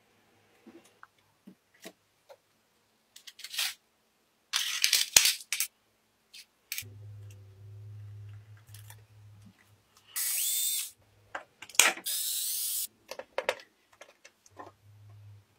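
Scattered clicks and knocks of small parts being handled, with a low hum for a couple of seconds and several short bursts of a small motor or power tool. The loudest bursts come about ten and twelve seconds in.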